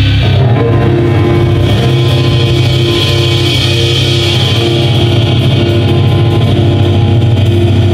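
Live band playing an instrumental passage: electric guitar, bass guitar, Roland stage piano and drum kit, with sustained chords and a repeating note figure.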